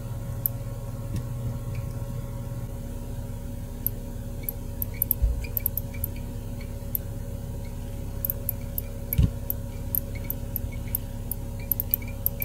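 Magnetic reed switches in a Casio 121-L calculator keyboard clicking as a key slider is worked with tweezers: a run of tiny, sharp, irregular ticks starting about four seconds in, with a couple of soft thumps, over a steady low hum.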